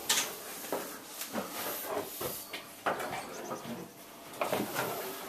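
Footsteps and handling knocks on bare wooden floorboards, irregular and uneven, over a steady hiss.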